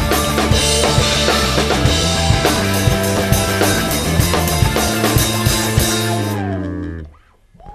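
Rock band playing an instrumental passage on drum kit, bass and electric guitar, with a steady beat. About six seconds in the high end drops away and the last notes slide downward in pitch as the music fades out, like a tape slowing to a stop.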